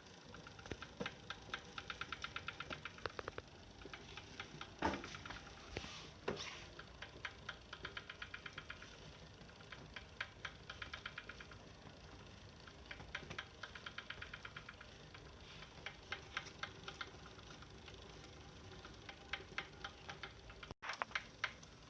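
Saris H3 direct-drive smart trainer making a rapid mechanical clicking, about seven clicks a second, in runs of a couple of seconds with short gaps between them. This is the unwanted clicking noise the trainer is being recorded for.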